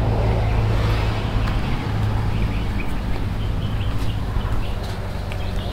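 Outdoor background: a steady low hum under a noisy haze, with faint scattered bird chirps.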